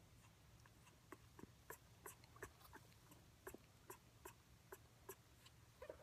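Faint, soft clicking from an African grey parrot's beak and tongue, irregular, about two or three clicks a second.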